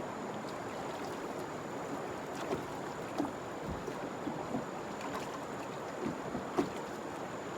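Fast-flowing river water rushing through shallow, rocky rapids: a steady rush with frequent small splashes and gurgles.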